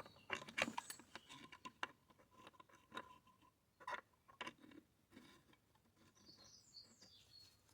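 Faint, scattered clicks and taps of small chainsaw parts being handled and fitted by hand.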